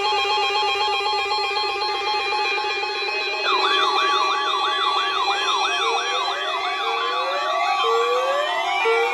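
Electronic siren and alarm tones sounding together. A steady multi-pitch alarm tone is joined about three and a half seconds in by a fast wavering wail, and later by a repeating rising whoop about once a second.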